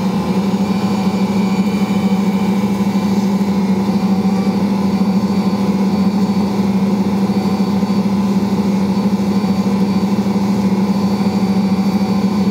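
Ankarsrum stand mixer running steadily while kneading bread dough: a constant motor hum as the bowl turns and the roller works the dough against the bowl's edge.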